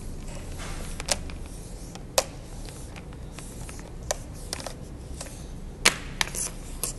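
Power cord being wrapped around the plastic base of a tire repair kit compressor: scattered light clicks and knocks of plastic being handled, with a brief rustle now and then.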